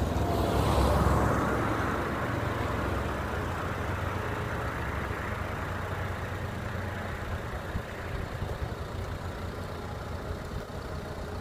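Road traffic noise: a steady hum of passing vehicles with a low rumble, loudest about a second in.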